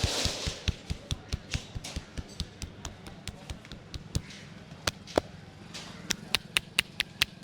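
Hands tapping and slapping a person's head in a rhythmic head massage, about three strikes a second, with a brief rustle at the start.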